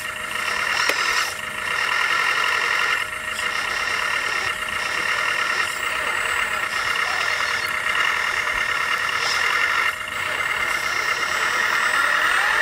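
1/14-scale RC trucks and construction machines running, a steady whir of their motors and gears with short dips every second or two.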